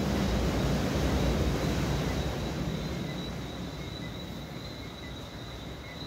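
Tropical night ambience: a steady high-pitched chorus of night insects and frogs, with a low rumble that swells about a second in and fades away over the next few seconds.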